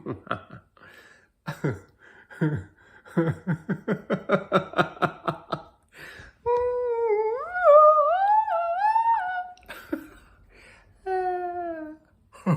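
A person laughing: short breathy bursts, then a quick run of about five 'ha' pulses a second, then a long, high, wavering laugh-like tone, and a short falling one near the end.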